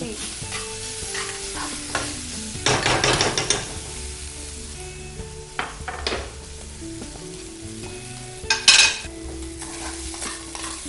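Rice and grated carrot sizzling in oil in a steel pan while being stirred and scraped with a utensil. There is a rattling run of scraping about three seconds in and a louder clatter of metal on the pan about 8.5 seconds in.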